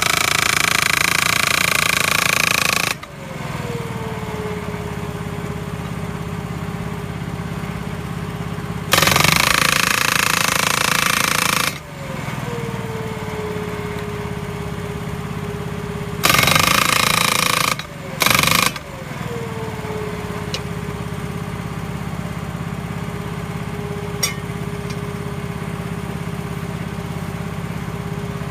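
Atlas Copco LPD-T hydraulic post driver hammering a round wooden fence post in rapid blows. It works in several stretches: one that stops about three seconds in, one of about three seconds midway, and two short ones close together later. Between them the hydraulic power pack's engine runs steadily, its whine settling lower after each stretch of hammering.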